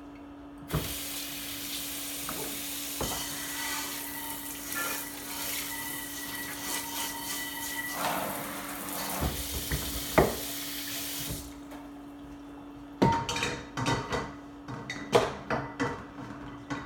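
Kitchen tap running into the sink while a metal frying pan is washed under it, with a few knocks of the pan against the sink; the water shuts off about eleven seconds in, followed by a run of clanks and clinks of cookware being handled. A steady low hum lies underneath.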